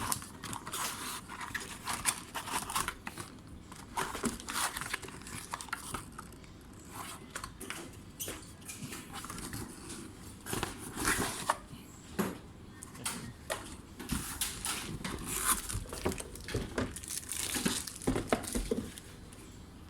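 Unboxing packaging being handled: irregular crinkling and rustling of plastic wrap, with scattered small clicks and knocks.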